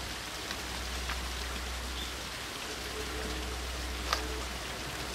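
Steady outdoor hiss with a few faint chirps. From about three seconds in, the distant Kominato Railway diesel train approaching along the line adds a faint low hum. There is a single sharp click about four seconds in.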